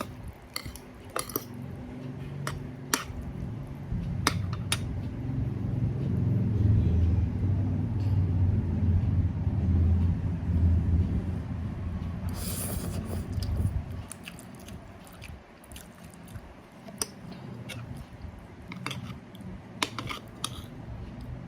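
Kitchen handling noises: scattered sharp clicks and knocks over a low rumble that builds through the middle and drops away about two-thirds of the way in, with a brief hiss just before it drops.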